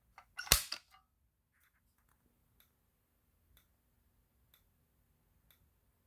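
A Fire-Lite BG-12 fire alarm pull station is pulled with one sharp clunk about half a second in. Faint ticks follow about once a second from the Wheelock ZRS strobe flashing, over a faint steady hum.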